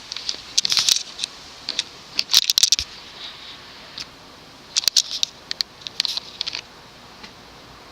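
Irregular clusters of sharp, scratchy clicks and crackles as the ceiling fan's solid-state variable-speed control knob is turned up a notch, over a faint steady hiss from the running fan.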